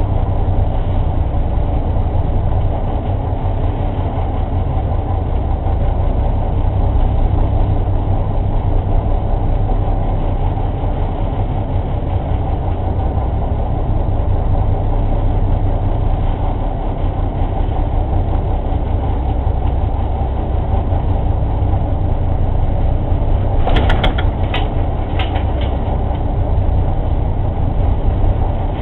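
A ship's engine droning steadily and low, with a brief run of sharp clicks or knocks near the end.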